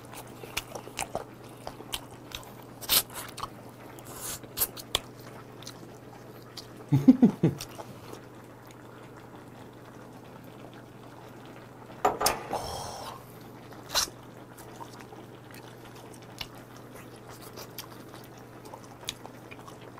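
Close-up eating sounds: chewing and sucking meat off pork bones from gamjatang, with scattered wet clicks and smacks. Louder sucking bursts come about seven and about twelve seconds in.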